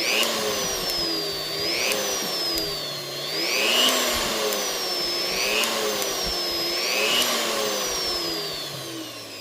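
Bauer 3-inch corded cutoff tool spinning free with no load, a steady motor whine that rises and dips in pitch about every two seconds. It spins smoothly without bad vibration. Near the end the whine falls in pitch and fades as the tool winds down.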